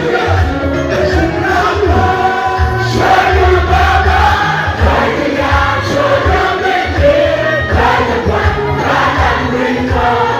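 Gospel worship music: a group of voices singing together over a steady pulsing bass.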